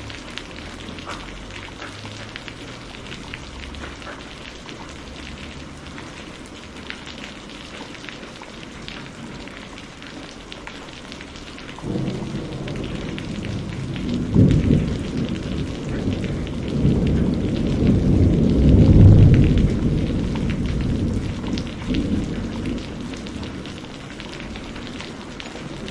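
Steady rain falling in a thunderstorm, with a long, low roll of thunder that breaks in suddenly about halfway through, swells twice, and dies away a few seconds before the end.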